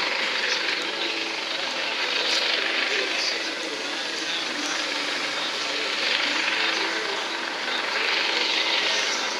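US Coast Guard MH-65 Dolphin helicopter flying low and slow, its turbine engines and rotors making a steady, even noise.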